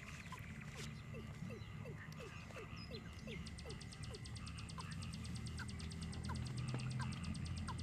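Frogs calling from the water's edge: short chirps repeated about twice a second over a steady high hum. A fast, high ticking trill joins about three seconds in.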